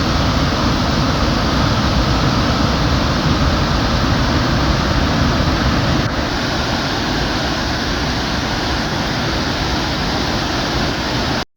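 Steady roar of a large waterfall on the Genesee River, running high and in flood after heavy rain. The roar drops a little about six seconds in.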